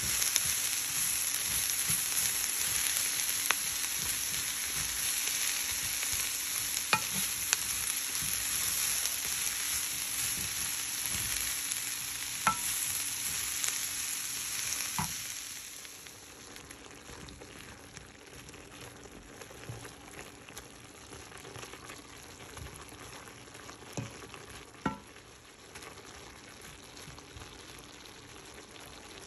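Shredded cabbage and onion sizzling as they stir-fry in a non-stick pan, turned with a wooden spatula that knocks against the pan every now and then. The sizzle drops much quieter about halfway through.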